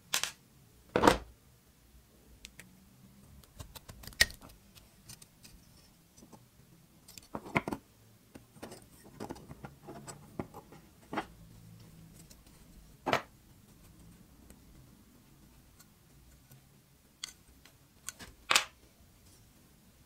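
Small rusty revolver parts being handled on a workbench: scattered metal clicks, taps and light scrapes, with about six louder knocks spread through, the loudest about a second in.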